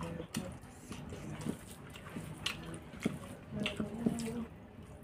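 A person chewing a mouthful of rice and curry, with scattered wet mouth clicks.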